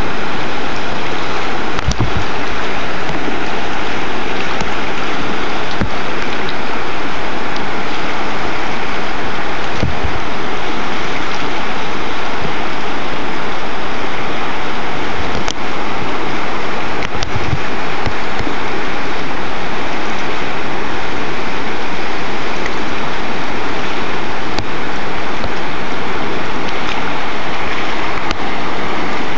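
Whitewater river rapid: loud, steady rush of broken water, with a few brief low bumps.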